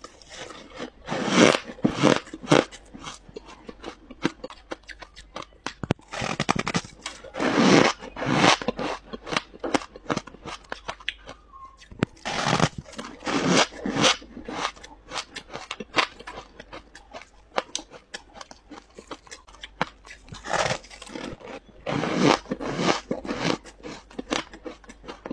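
Close-miked biting and chewing of packed freezer frost: squeaky, crunching bites that come in clusters every few seconds, with quieter chewing between them.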